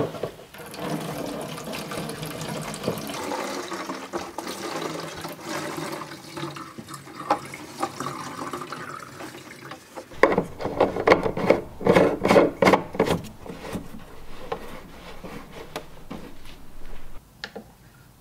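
Diesel poured from a plastic jerry can into a plastic heater fuel tank, the liquid filling the tank steadily, with a run of knocks and glugging bursts from about ten seconds in.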